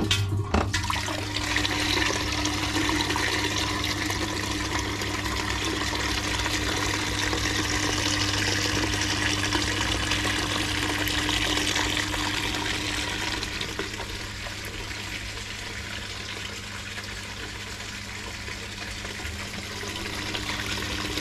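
Bucket blaster keg washer running: a submersible pond pump in a bucket drives hot cleaning solution up through a T-piece into an upturned stainless corny keg, spraying and splashing steadily inside it over a steady low pump hum.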